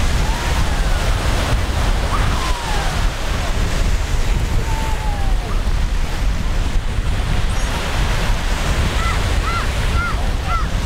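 Surf washing ashore with wind buffeting the microphone in a steady low rumble. Near the end, a quick run of about five short high calls, each rising and falling.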